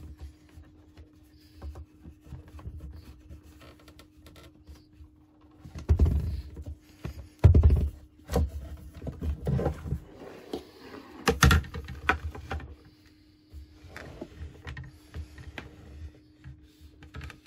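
Handling noise from a small Peavey Backstage guitar amp being taken apart: irregular knocks, clicks and scrapes as the metal chassis is worked loose and slid out of its cabinet, loudest and busiest in the middle stretch.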